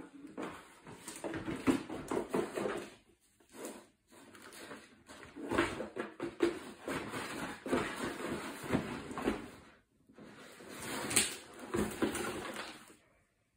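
A cardboard cereal box rustling, knocking and scraping on a wooden floor as a cat shoves it around with its head inside, in irregular bouts with short pauses.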